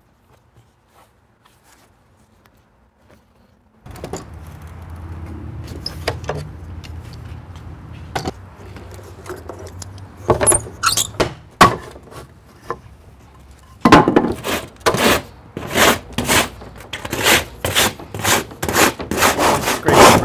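Hand plane shaving the edge of a wooden surfboard in quick repeated strokes, about two to three a second, that start about two-thirds of the way in and quicken; before that, a low steady hum and a few scattered knocks.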